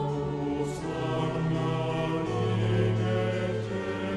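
Background music of slow, sustained choral chords, changing about every second and a half.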